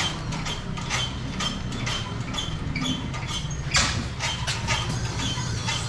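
Styrofoam fish boxes being handled at the side of a truck: scattered knocks and short squeaks, with a louder knock nearly four seconds in. Under them runs a steady low engine-like hum.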